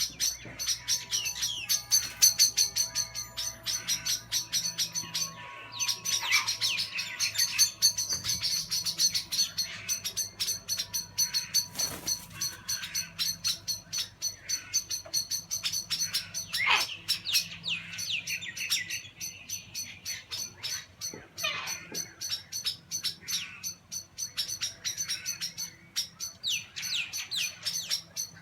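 Small birds chattering with rapid, high-pitched chirps, many notes a second, with a few louder, harsher calls breaking in now and then: alarm calls as they mob a kookaburra.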